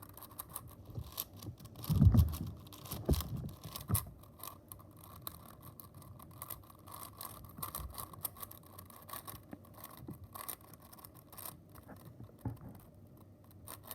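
Plastic 4x4 Rubik's Cube being turned quickly by hand: a running clatter of small clicks and scrapes as the layers turn. A heavier knock comes about two seconds in and another about a second later.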